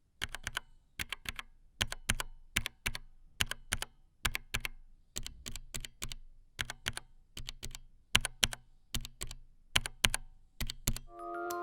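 Keys typed on a mechanical keyboard with Kailh Red Box linear switches: an uneven run of sharp keystroke clacks, a few a second, many heard as a press followed closely by a release.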